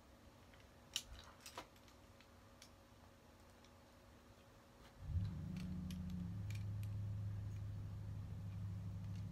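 A few small plastic clicks as a Transformers Studio Series Sideswipe figure and its accessories are handled, the sharpest about a second in. About five seconds in, a steady low hum starts and keeps going, louder than the clicks.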